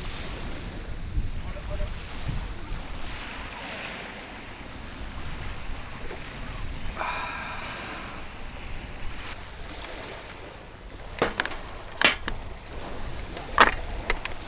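Seaside wind and waves with low wind rumble on the microphone. A short voice sound comes about halfway, and several sharp knocks fall in the last few seconds.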